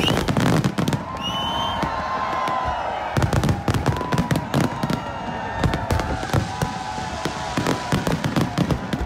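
A dense fireworks barrage: rapid, overlapping bangs and crackles from shells bursting overhead, with whistling tones gliding above them.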